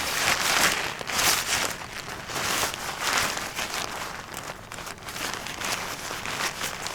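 Crinkly rustling and crunching in uneven surges, starting suddenly.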